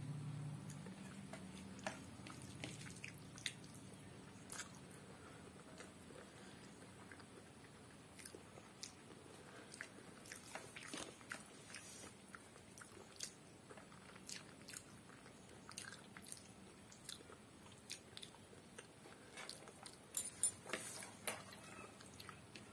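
Close-miked eating by hand: soft chewing and mouth clicks of rice and curry, with small wet squishes of fingers mixing rice on the plate. A denser, louder run of clicks comes near the end.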